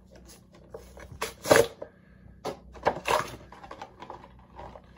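Clear plastic blister packaging of a toy being handled and pulled open: a series of crinkles and sharp plastic cracks, the loudest about a second and a half in and more around the three-second mark.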